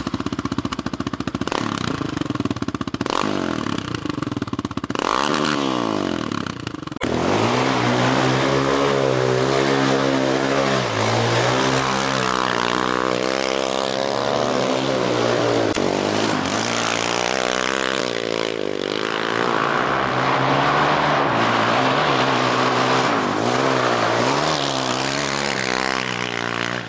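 Quad bike (ATV) engines running, the engine note rising and falling with the throttle. For the first several seconds wind buffets the microphone; after that the engine note comes through clear and steady.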